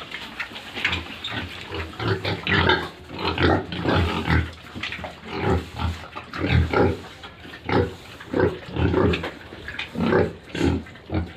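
Pigs grunting: a run of short, irregular grunts, some with higher squeal-like edges.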